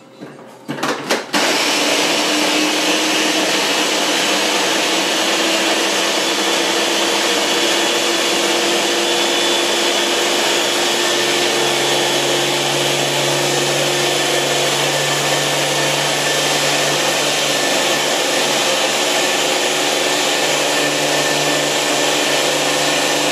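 Small press-top electric blender running steadily, chopping mango, ginger, garlic and jalapeño, after a few clicks as the motor head is set on and pressed down about a second and a half in. A lower hum joins the motor's sound about halfway through.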